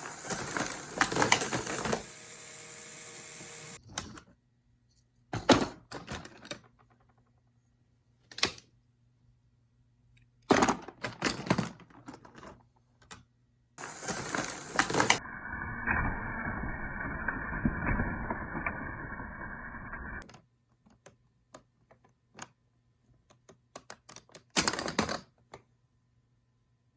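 Rapid plastic clicking and clattering in separate bursts with pauses between them, from a Lego brick machine gun's mechanism firing plastic bullets. Partway through there is a continuous rattle lasting about six seconds.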